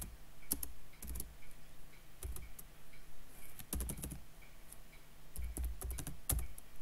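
Computer keyboard being typed on: irregular key clicks, some single and some in quick little runs, as a line of code is entered.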